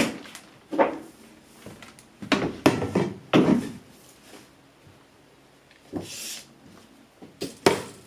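Knocks and clunks of plastic drain pipe and fittings being handled: one about a second in, a cluster of several from about two to three and a half seconds, and two more near the end. A short rustling hiss comes about six seconds in.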